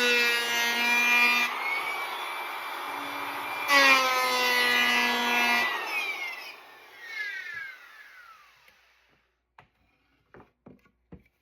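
Electric hand planer running and cutting into a purpleheart hardwood board, biting hard just before the start and again about 4 s in. It is switched off about 6 s in and its motor whines down over two seconds, followed by a few light knocks.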